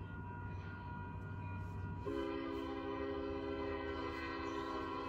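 A diesel freight locomotive's air horn sounds one long, steady chord of several notes, starting about two seconds in and held for roughly three seconds, as the train approaches a level crossing. Under it runs the low rumble of the train.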